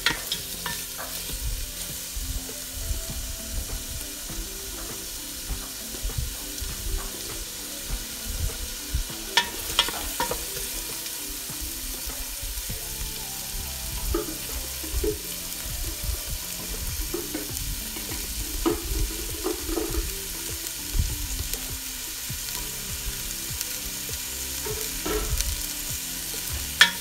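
Sliced onion, garlic and ginger sautéing in a stainless steel stockpot: a steady light sizzle, with a few scattered clicks.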